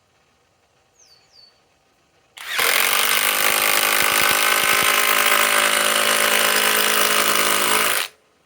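Flex compact cordless impact driver running under load, driving a 4-inch structural screw into wood. It starts about two and a half seconds in, runs steadily for about five and a half seconds with the impact mechanism hammering, then stops sharply.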